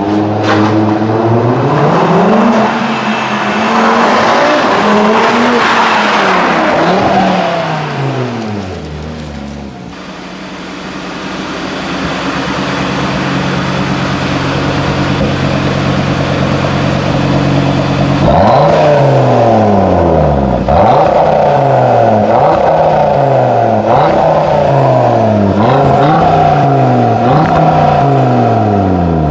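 Cupra Formentor VZ5's turbocharged five-cylinder through an Akrapovič Evolution exhaust: first it revs up and down while driving, then it idles steadily, then from about two-thirds of the way in it gives a series of quick throttle blips, one every second and a half to two seconds.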